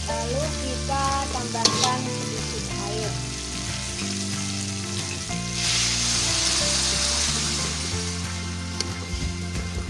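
Dried anchovies frying in oil with spice paste and tomato in a wok, sizzling steadily while a spatula stirs and scrapes them, with a few sharp clicks in the first couple of seconds. About halfway through, the sizzle swells louder for roughly two seconds.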